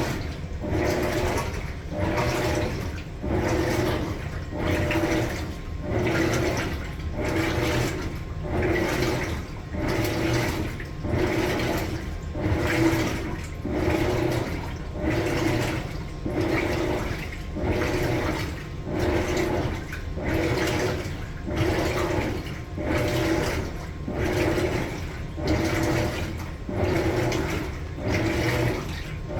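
Maytag Bravos MCT top-load washer agitating a load, the water sloshing in the tub with each stroke in an even rhythm of about one surge a second.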